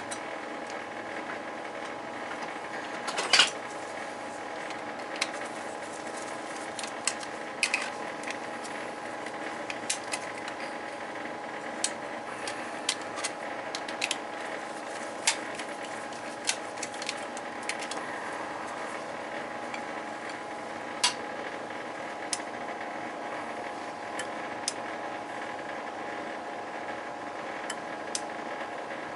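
Scattered light metallic clicks and clinks of hand tools and small burner parts being handled, the sharpest about three seconds in, over a steady mechanical hum.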